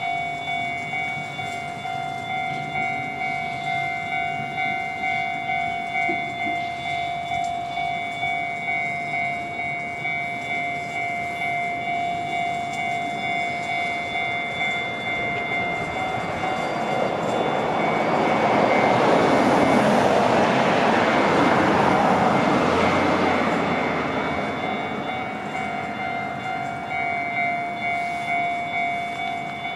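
Level-crossing warning bell ringing in a steady, evenly repeating pattern. About halfway through, a train passes over the crossing: its rumble builds, drowns the bell at its loudest, then fades away, and the bell rings on.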